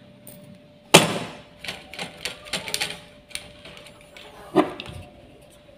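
Handling noise from a snap-off utility knife cutting the binding thread on a fishing rod and being put down on the table: a sharp knock about a second in, a run of light irregular clicks and taps, and another knock near the end.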